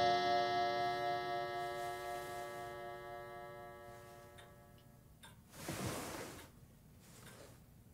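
A long sustained musical chord dying away over the first few seconds, then a clock ticking faintly in a quiet room. A brief rustle comes about six seconds in.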